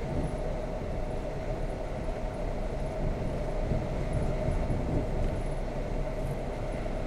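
ED4M electric multiple unit running at speed, heard from inside a carriage: a steady low rumble with a constant hum.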